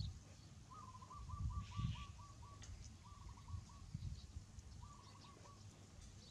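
A bird's fast trill of short repeated notes, given three times: a longer run and then two short ones. Faint low bumps and rustling lie underneath.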